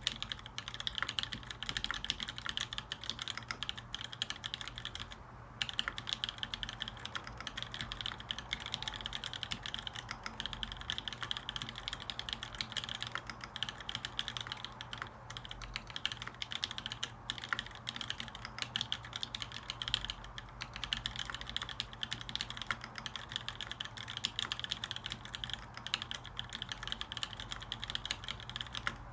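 Steady typing on a Montage prototype custom mechanical keyboard fitted with lubed Kailh Cream switches in a 2 mm aluminium sandwich-mounted plate. It makes a dense stream of rapid keystrokes, with a short break a little over five seconds in and a few briefer pauses later.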